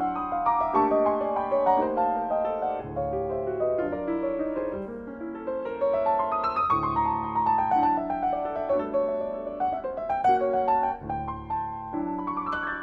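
Solo jazz piano played on a Yamaha grand piano: held chords with low bass notes under a melody that steps downward in runs.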